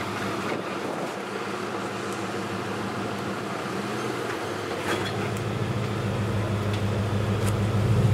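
Nissan Patrol GQ's engine running at low revs as it crawls up a rock step, growing louder in the second half as it takes more throttle, with a few faint knocks.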